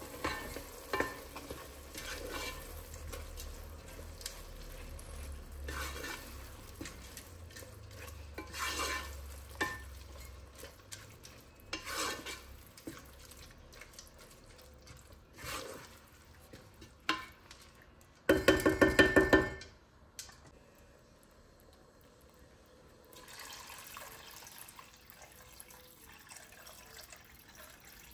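Wooden spoon stirring rice and red lentils in a tomato base in a pot, in short scraping strokes. About two-thirds of the way through comes a loud, rapid rattle lasting about a second, and near the end water is poured into the pot.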